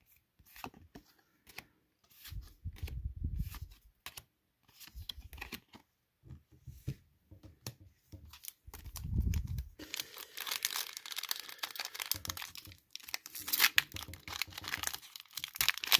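Trading cards being handled, with scattered light clicks and a few soft thumps. From about ten seconds in, a foil Pokémon booster pack wrapper is torn open and crinkles loudly.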